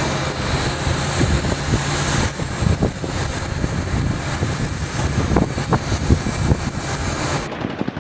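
Wind rushing over the microphone on a moving vessel at sea, with a low engine rumble and irregular low buffeting thumps; the noise cuts off abruptly near the end.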